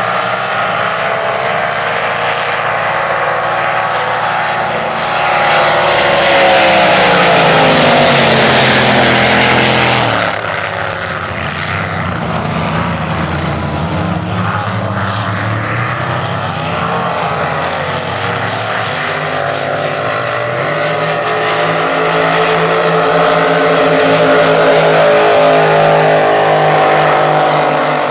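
Several supercharged displacement-class race boats running at full throttle, the engines' pitch falling as one passes close about eight seconds in. The sound drops abruptly just after ten seconds, then the engine note builds again toward the end.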